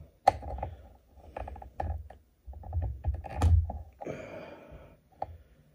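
Irregular clicks and dull knocks of tools and parts being handled while working the old power cord free from a guitar amp, with a scraping rustle about four seconds in.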